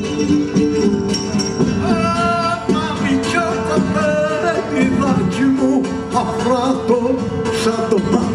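Live Cretan folk music: a bowed Cretan lyra plays an ornamented melody over a steady drone, with laouta strumming and a frame drum beating along.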